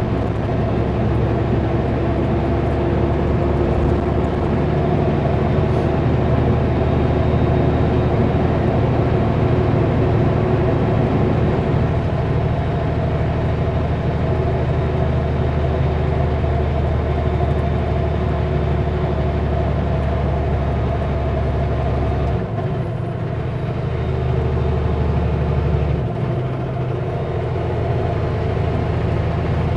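Kenworth W900L semi-truck engine running steadily under load as the heavy super B rolls along the highway, a continuous low drone. Near the end its deepest note briefly drops away twice.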